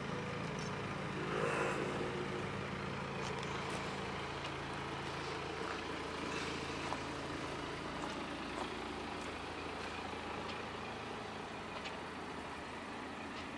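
A vehicle engine hums steadily and low, fading away about halfway through. Beneath it is a faint outdoor background noise with a few light clicks.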